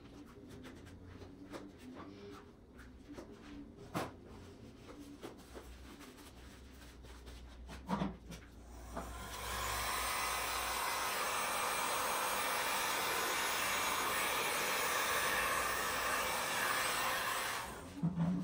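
Heat gun blowing steadily over fresh epoxy for about eight seconds, a stage used to pop surface bubbles and open the cells, starting about nine seconds in and cutting off near the end. A few light knocks come before it.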